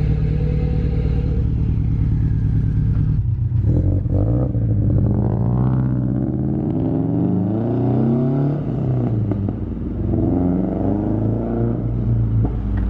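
Turbocharged Subaru BRZ's flat-four engine idling with a steady low note, then pulling away about three seconds in and revving up through the gears. A second rise in pitch comes near the end as the car drives off.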